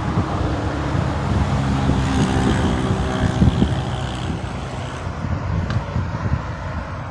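Motor vehicle engine hum and road noise, swelling to a peak around the middle and easing off toward the end.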